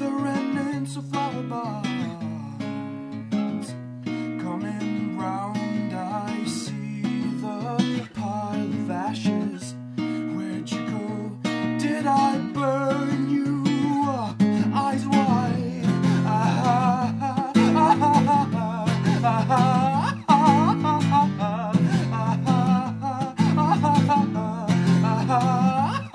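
Acoustic guitar played lap-style, laid flat across the lap, in a rhythmic instrumental passage of plucked notes. It grows fuller and louder about halfway through.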